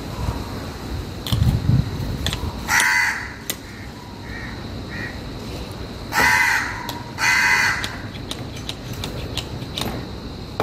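A crow cawing: three loud harsh caws with a few softer calls between them. Light clicks and taps of a brake master cylinder's metal parts being handled run underneath.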